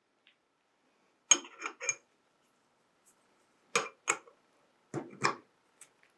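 A wrench clinking against the metal sonotrode (horn) of a handheld ultrasonic processor as it is fitted on to loosen it: short sharp metallic clicks in small groups of two or three, first about a second in, then near four seconds and again near five.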